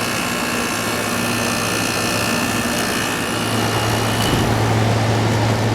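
Sears Kenmore 6000 BTU room air conditioner (model 106.8760681) running on its first start-up: a steady compressor hum under the fan's rush of air, with the compressor settling down. A higher whine fades out about halfway through, and the low hum grows stronger from about four seconds in.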